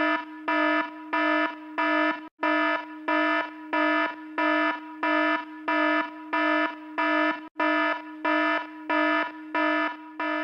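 Fire alarm horn sounding in an even pulsing pattern, a buzzing blast about three times every two seconds.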